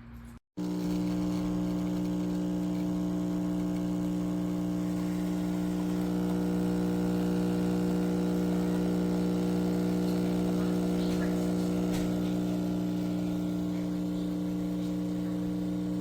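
Geek Chef 20-bar espresso machine's pump running with a steady hum while brewing a shot, starting about half a second in.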